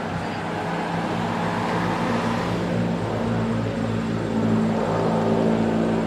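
A motor running steadily: an even, low, pitched hum over a background rush of noise.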